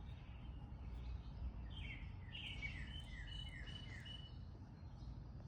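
A bird chirping a quick run of about seven short falling notes, with a thin held whistle alongside, over a low steady background rumble.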